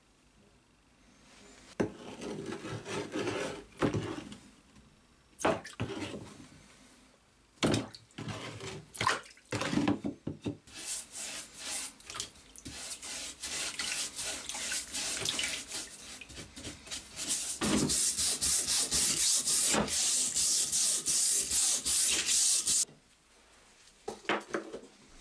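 Rusty metal files handled and knocked in water in a plastic tub, then scrubbed with a brush under the water in rapid, rasping back-and-forth strokes that grow louder and cut off sharply near the end.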